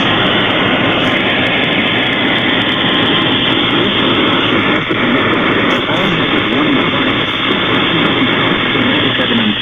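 Loud, steady radio static from a weak NOAA Weather Radio signal picked up on a software-defined radio receiver, with faint traces of the broadcast voice buried in the noise.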